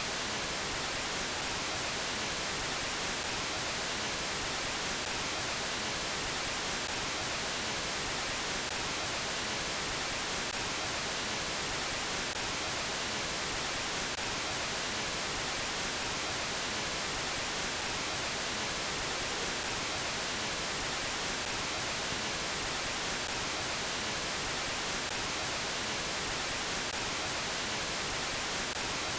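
Static: a steady, even hiss of white noise, brightest in the treble, with no change in level.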